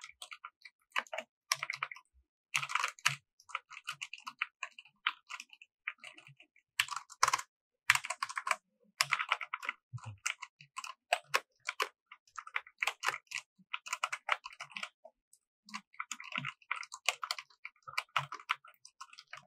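Typing on a Blueforce Shooter mechanical keyboard with red linear switches: runs of quick key clicks with short pauses between them. The switches give no sharp tactile click, as blue switches do.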